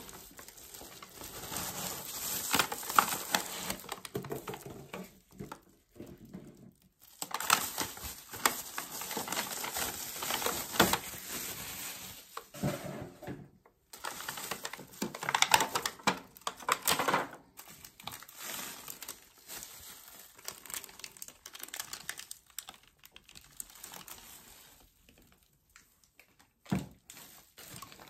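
Plastic bubble wrap and a thin cardboard box crinkling and rustling as a device is unpacked by hand, in bursts with brief pauses. The handling grows quieter about two-thirds of the way through, with a single sharp click near the end.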